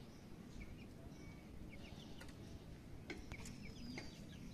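Faint chickens clucking and birds chirping, with a few light clinks of a metal ladle on a steel plate.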